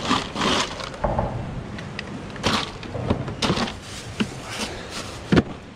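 Cans and plastic water bottles knocking and rattling as they are shifted around inside a plastic cooler: a string of irregular clunks and clicks, with one sharper knock near the end.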